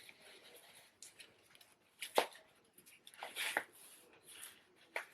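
A few brief, faint rustles and scrapes of a nylon wig cap being handled and pulled on over the hair.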